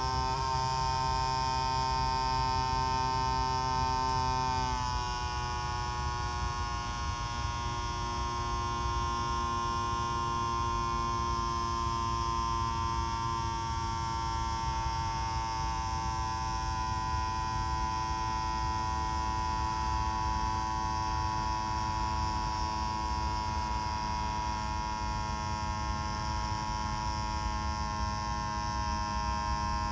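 Small electric fuel pump of a DIY RC-airplane fill station running on a 3S battery, draining fuel out of a small tank: a steady motor hum whose pitch drops slightly about five seconds in and then holds.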